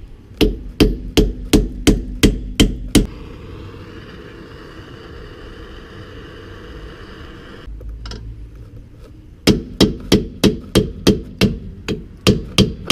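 Hammer blows on a rusted, seized rear wheel hub assembly, a rapid series of sharp metal strikes at about two to three a second. They stop for several seconds after about three seconds in and resume near the end.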